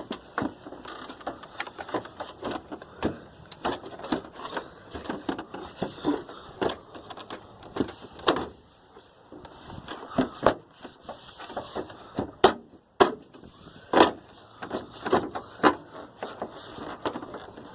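Irregular clicks, taps and knocks of hand work on a car's headlight and fender parts, several a second and uneven in loudness, with a short pause about two-thirds of the way through.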